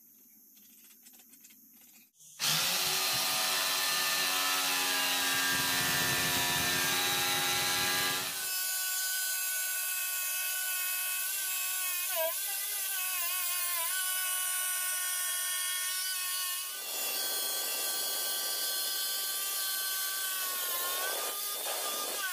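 Makita 4327 corded jigsaw cutting plywood, starting abruptly about two seconds in. Its motor whine is steady, with dips and wobbles in pitch as the blade bites, and a rough sawing rasp that comes and goes.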